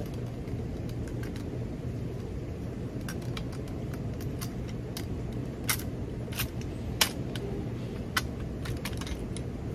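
Sharp metallic clicks and clinks of hand tools being worked against copper refrigerant tubing, scattered irregularly and loudest about seven seconds in, over a steady low background rumble.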